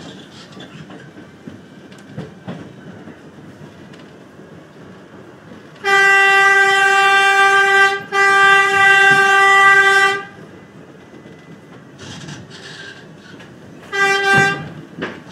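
New York City subway train's horn sounding two long blasts back to back, about two seconds each, then one short blast about four seconds later, over the low running noise of the train on the rails.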